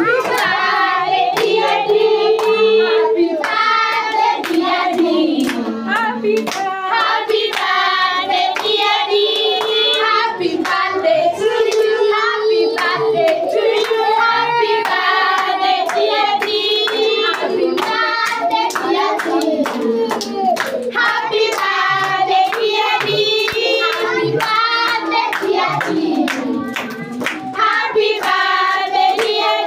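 A group of people singing together, with hand-clapping.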